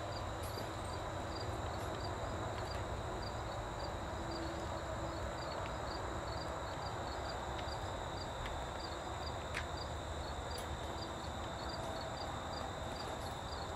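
Outdoor background of insects chirping steadily, a few short chirps a second over a constant high drone, with a few faint clicks.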